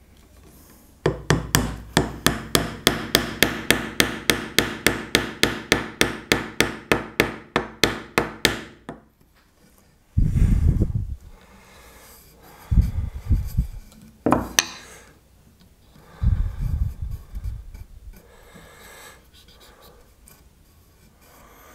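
Rapid, even tapping, about four sharp strikes a second for some eight seconds, each ringing briefly. Then come several dull knocks and rubbing sounds.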